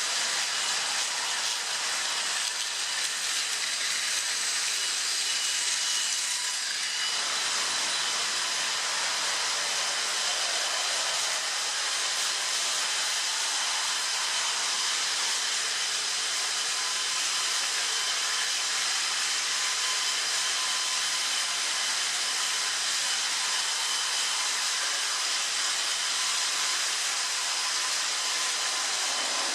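Battery-powered Plarail toy trains running on plastic track: small electric motors and gears whirring steadily with a thin whine, and the wheels rolling over the track. The lower part of the sound thins out about seven seconds in.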